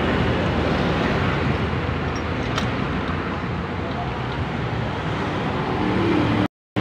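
Steady background road-traffic noise, with a faint click about two and a half seconds in. The sound cuts out briefly near the end.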